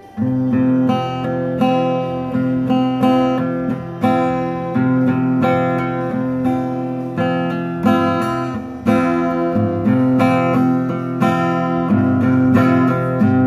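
Acoustic guitar strummed in a steady rhythm, chords ringing between strokes: the opening chords of a song, with no voice yet.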